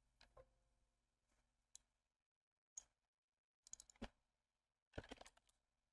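Faint clicks of a computer keyboard and mouse: a few single clicks, then two short flurries of clicks in the second half.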